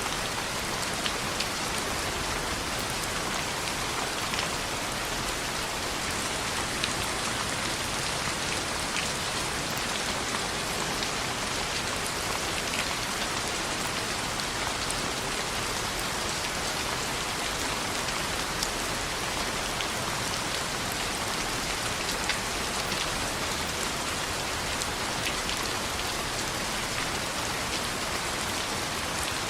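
Steady rain on a window: a constant even hiss, with scattered sharp ticks throughout.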